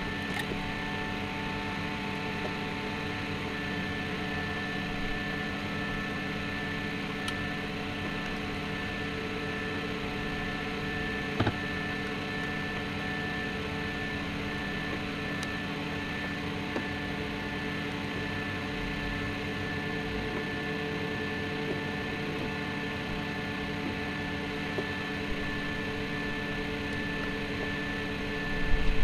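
Desktop plastic filament extruder running: a steady electric hum with several steady tones, and a single click about eleven seconds in.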